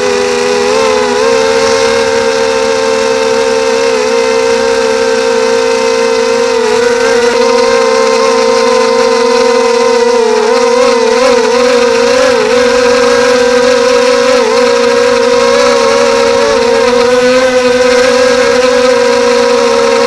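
Quadcopter's electric motors and propellers whining steadily, heard close from the onboard camera. The pitch wavers slightly with throttle changes several times in the second half.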